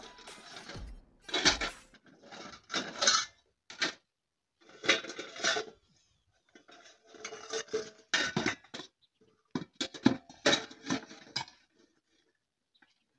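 Dishes clattering as they are handled and stacked by hand, in irregular bursts of clinks and knocks with short pauses between them.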